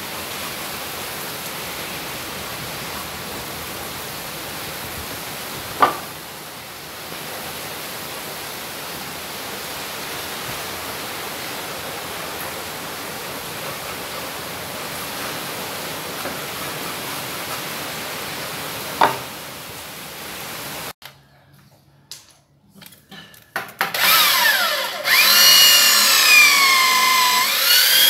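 Steady hiss with two sharp knocks, one about six seconds in and one near twenty seconds. After a short gap, an electric drill bores into a wooden beam with a 20 mm bit, its motor whine rising and falling as it bites.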